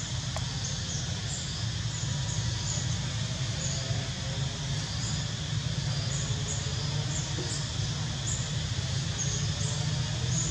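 Outdoor ambience: a steady low rumble with many short, faint high-pitched chirps or squeaks scattered through it.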